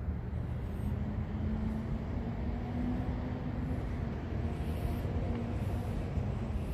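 Street traffic: a motor vehicle's engine hum that holds steady for several seconds and then fades, over a continuous low rumble.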